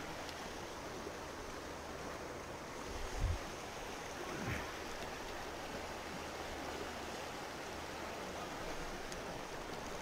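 Shallow river running over a gravel and cobble bed: a steady rush of water, with a soft low thump about three seconds in.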